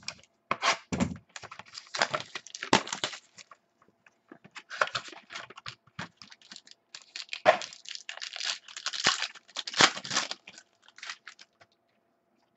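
An Inception football trading card box and pack being torn open, the wrapper crinkling and crackling in two runs of rips and rustles, with the cards handled between them.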